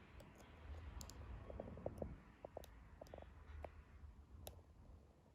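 Near silence with faint, scattered small clicks over low room noise, dying away to almost nothing near the end.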